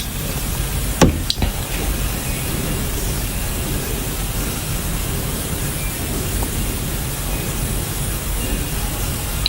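Steady hiss of noise, with two sharp clicks close together about a second in.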